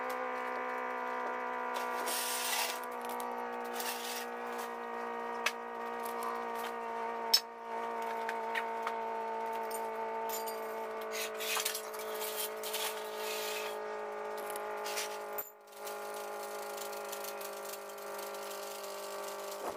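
Scattered metal clinks, rattles and knocks from shop work on an engine and a steel engine hoist, over a steady droning hum.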